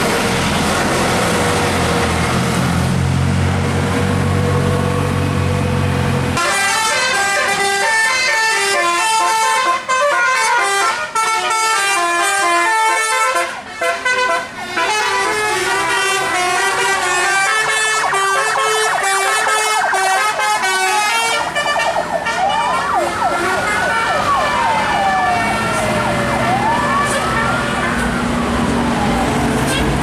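Tour bus engine running, then from about six seconds in a multi-tone musical air horn ("telolet") plays a rapid melody of stepping notes for about fifteen seconds. It is followed by a siren-like horn sweeping up and down in pitch, with the bus engine heard again near the end.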